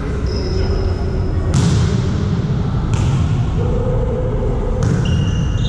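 A volleyball struck three times in a sports hall, sharp hits roughly one and a half to two seconds apart, with short high squeaks in between from sneakers on the court floor.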